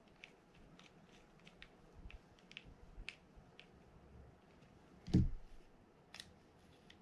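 Faint small clicks and ticks of a mini screwdriver turning the anti-reverse lever screw into a Daiwa BG90 spinning reel's body, then a louder knock about five seconds in as the screwdriver is set down on the bench, and another click a second later.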